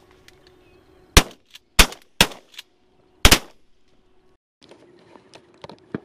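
Shotgun fire on a duck hunt: four sharp blasts within about two seconds, starting about a second in.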